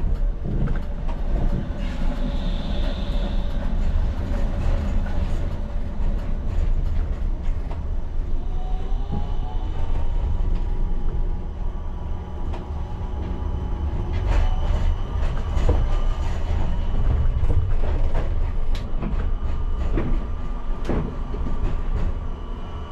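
Škoda Anitra 03T6 tram running on its track: a steady low rumble, with a thin whine from the drive that rises in pitch partway through and then holds. In the second half the wheels give several sharp clacks over the track.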